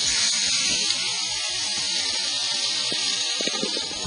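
Thick ribeye steak sizzling steadily on the hot half-moon griddle of a Kamado Joe Classic II ceramic charcoal grill, seared over direct heat with the vents fully open, just after being turned over.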